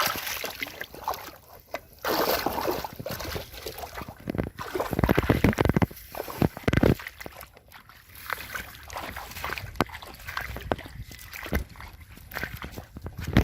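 Pond water sloshing and splashing in irregular bursts, loudest about halfway through.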